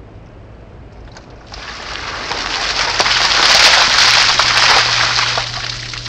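Ice water poured from a white plastic bucket over a seated man, splashing onto him and the ground. The rush of water starts about a second and a half in, is loudest in the middle and tails off near the end.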